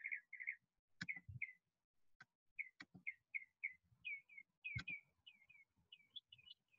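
A songbird chirping faintly in a run of short, quick repeated notes that turn higher and more hooked about two-thirds of the way through. A few sharp clicks are scattered among the chirps.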